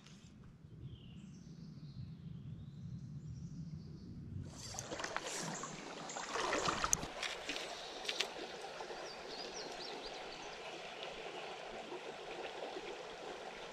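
Outdoor river sound: shallow, slow water trickling and lapping, with a few sharper splashes and clicks about a third of the way in. The first few seconds are quieter, with a low rumble and faint bird chirps, and faint chirps come again later.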